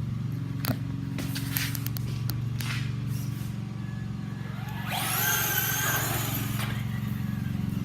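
Traxxas Slash RC truck's onboard engine sound module playing a steady simulated engine hum, with a few sharp clicks in the first couple of seconds. About five seconds in comes a louder, hissing rush of sound that lasts nearly two seconds.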